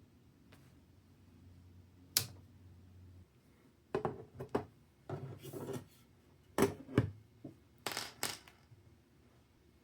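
Sharp clicks and light clattering of small hard parts being handled: one crisp click about two seconds in, then several short clusters of clicks and knocks.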